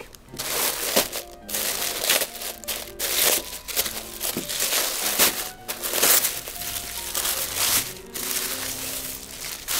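Tissue paper crinkling and rustling in repeated handfuls as it is unfolded by hand from around a folded dress shirt, with soft background music underneath.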